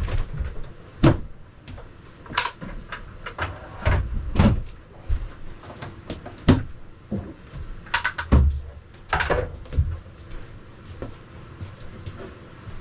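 Hole covers being popped off the floor of an ice-fishing house and set down: an irregular series of knocks and clatters with several heavier thumps.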